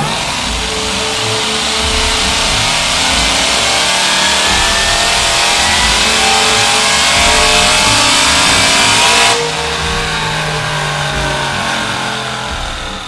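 Chevrolet TrailBlazer SS's LS2 V8 making a full-throttle pull on a chassis dyno, the engine note climbing steadily in pitch. About nine seconds in the throttle is cut and the sound drops sharply, then winds down as the engine and rollers slow.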